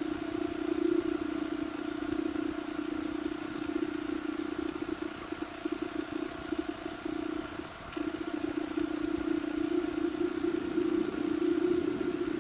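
A steady, low mechanical drone with fainter higher overtones, dropping out briefly about two-thirds of the way through.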